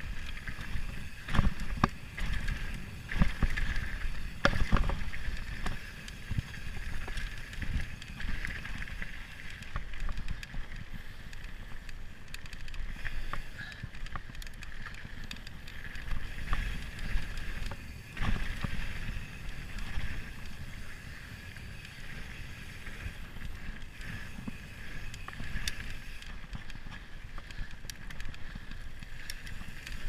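Mountain bike riding fast down a dirt singletrack, heard from a camera mounted on the rider: a steady rumble of tyres and rattling bike parts over the rough trail, with sharp knocks from bumps, most of them in the first few seconds.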